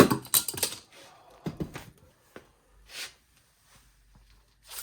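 Parts of a small electric melting furnace being handled while it is taken apart: a burst of clattering and rattling at the start, a knock about one and a half seconds in, and two short scrapes later.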